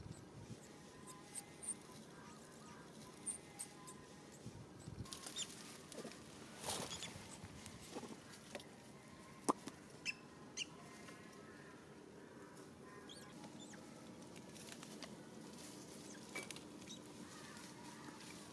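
Faint outdoor ambience with scattered clicks, rustles and a few short high chirps or squeaks.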